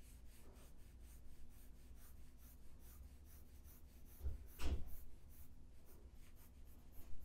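Faint scratching of quick, repeated sketching strokes, several a second, as shading is hatched in on a drawing. A couple of low bumps about four and a half seconds in are the loudest sounds.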